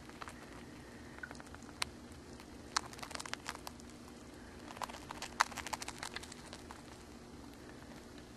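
A hamster nibbling and crunching a Cheez-It cracker: quick, crisp little clicks in two flurries, about three seconds in and again about five seconds in, over a faint steady hum.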